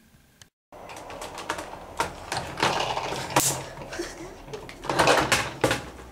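Yellow plastic toy school bus handled and set down on a wooden table: a busy run of clicks, knocks and plastic rattles with rustling, loudest about three and a half and five seconds in.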